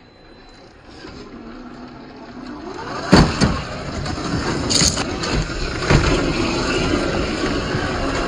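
Traxxas TRX-4 Defender RC crawler's brushed electric motor and geared drivetrain whining under load as it climbs rock, rising in pitch about two and a half seconds in. A few sharp knocks come about three, five and six seconds in.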